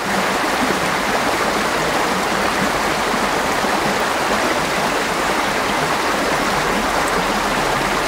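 Flowing river water rushing steadily, recorded close to the water, so it sounds like a dense, even hiss, much like white noise.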